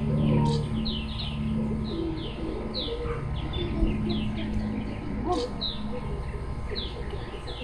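Birds chirping over and over in short, high, falling chirps, with a steady low hum underneath.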